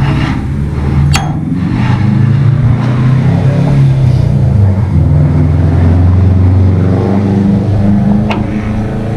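A motor vehicle's engine runs close by, its pitch shifting up and down and swelling louder through the middle. Two sharp metallic clicks come about a second in and near the end.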